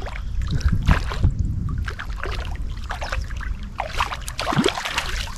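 Water splashing and sloshing around people wading waist-deep as a small fish is pulled up out of the water, louder about four seconds in, over a low rumble of wind on the microphone.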